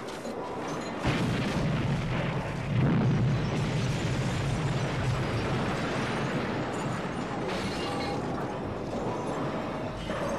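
Movie explosion sound effect as a toy store blows apart: a sudden loud blast about a second in, a second surge a couple of seconds later, then a long rumbling roar of the blast and flying debris.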